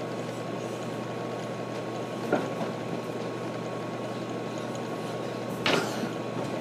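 Steady background hum with a faint constant tone, broken twice by short bumps of a boy tumbling and wrestling a stuffed animal on a mattress, the second bump near the end louder.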